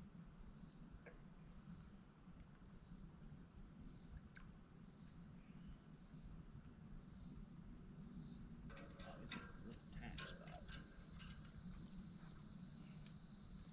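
Steady high-pitched insect chorus, with a softer pulsing call layered under it for the first half. Faint scattered clicks join it about nine seconds in.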